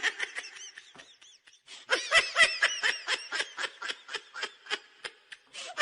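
High-pitched giggling laughter: a quick run of short 'ha' pulses, about five a second, beginning about two seconds in after a brief faint start and growing weaker near the end.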